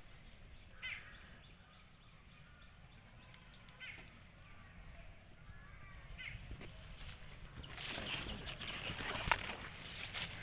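A bird calling three times, a few seconds apart, over a quiet outdoor background. Near the end a louder rustling, crackling noise with sharp clicks sets in, like leaves and branches brushing close to the microphone.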